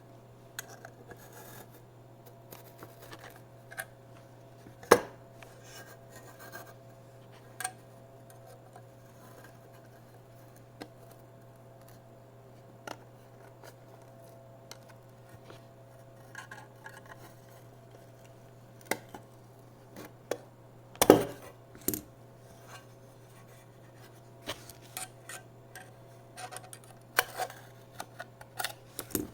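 A SATA SSD's casing being opened by hand: scattered clicks, scrapes and knocks, the loudest about five seconds in and again around twenty-one seconds in, over a steady low hum.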